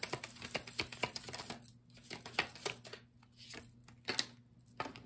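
A tarot card deck shuffled by hand: a quick, dense run of card snaps and flutters in the first couple of seconds, then scattered single clicks and slaps as the cards are squared and cut.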